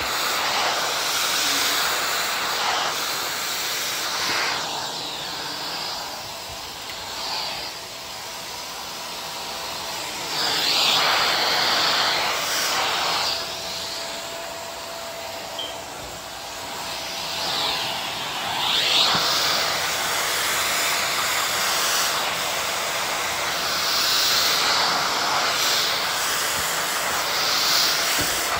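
Vacuum cleaner running with a steady rushing whoosh that swells and eases several times, with a faint steady whine under it.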